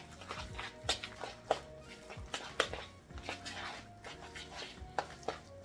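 A fork working raw ground meat and egg in a plastic bowl: irregular clicks and scrapes of the fork against the bowl, over background music.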